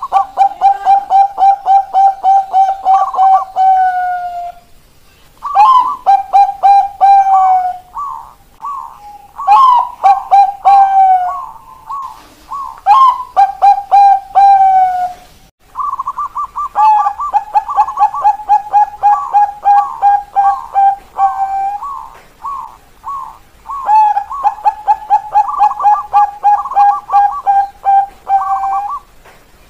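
Zebra doves (Thai 'Bangkok' perkutut) cooing in the 'keok, kok kok kok' style. There are about six phrases, each opening with a higher note and then running into a fast, even string of short coos, about five a second, with brief pauses between phrases.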